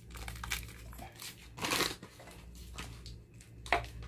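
Crinkling of a Masako seasoning sachet being handled and opened, in scattered short bursts, the loudest about a second and a half in and another near the end.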